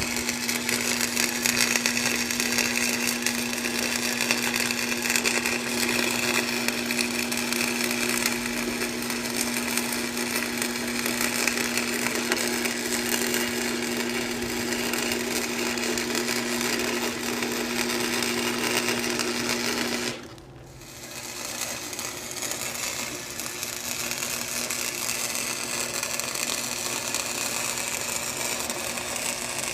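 A machine runs steadily with a constant buzzing hum. About two-thirds of the way through it cuts out abruptly, the hum stops, and a fainter steady noise carries on.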